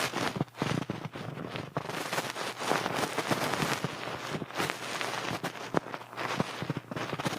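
Rain pattering: a steady hiss full of dense, irregular ticks and crackles.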